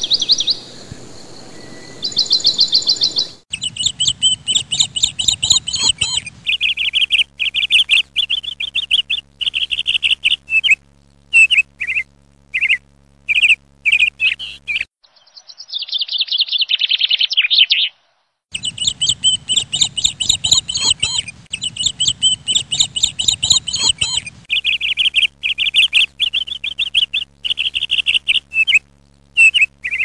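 Small birds chirping in quick repeated high notes, with several sudden breaks where the sound stops and starts again, and a longer falling phrase about halfway through.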